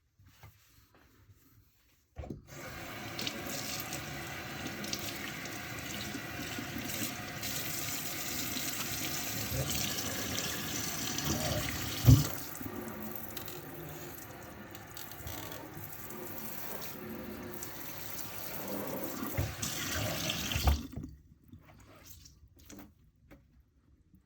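Kitchen tap running into a sink, turned on about two seconds in and shut off near the end, with the water splashing over dishes being rinsed. Two sharp knocks of something hard clunking in the sink stand out, the louder one about halfway through.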